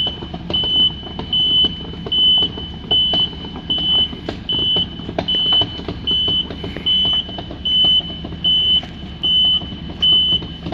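Excavator travelling slowly uphill: its diesel engine runs under a high travel-alarm beep that repeats a little faster than once a second, with irregular clanks and knocks from the tracks, one of which has a split shoe on the right side.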